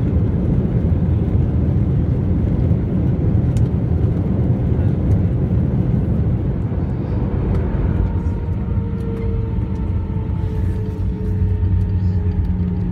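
Inside the cabin of an Airbus A319 rolling out on the runway after landing, with the spoilers up: a loud, steady rumble of wheels and airflow. From about eight seconds in, several steady humming tones come through and sink slightly in pitch as the aircraft slows.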